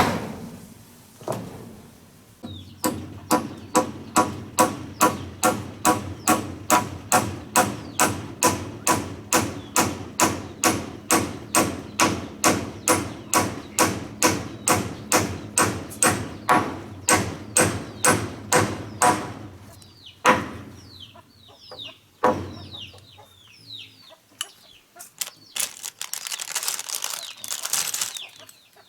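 A tool striking over and over in a fast, even rhythm, about three blows a second, each with a short ring, then stopping. Near the end a few single knocks, with chicks peeping and a hen clucking.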